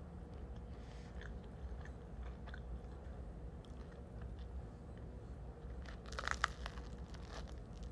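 A person chewing bread with faint clicks, then biting into a piece of crusty bread about six seconds in: a quick cluster of crackling crunches, the loudest sound here. A steady low room hum runs underneath.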